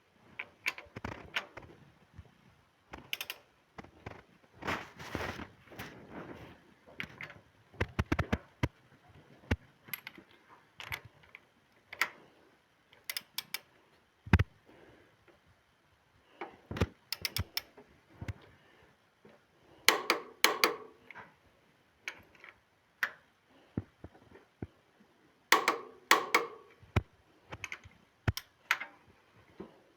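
Irregular mechanical clicks, knocks and clatter in scattered short bursts with quiet gaps between, the loudest clusters about twenty and twenty-six seconds in.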